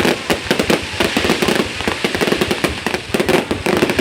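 Fireworks going off in a dense, continuous barrage of rapid bangs and crackles, with no pause through the whole stretch.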